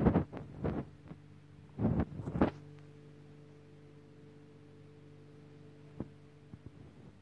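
A steady low electrical hum, with a few dull thumps in the first two and a half seconds and a single click about six seconds in.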